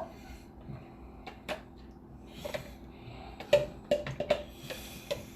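Light clicks and knocks of a spoon against a bowl while hummus is spooned out, with a quick cluster of them about three and a half to four and a half seconds in, over a faint steady hum.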